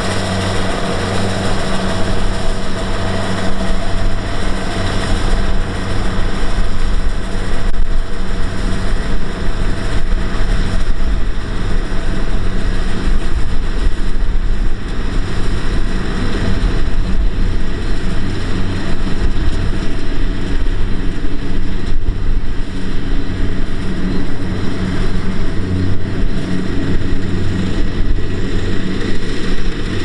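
Kubota DC-70Plus rice combine harvesters running under load while cutting rice: a steady diesel engine drone mixed with the noise of the harvesting machinery.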